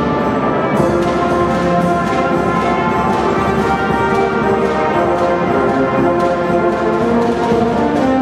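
Marching band playing: brass instruments carry a melody of held notes over a steady, regular drum beat.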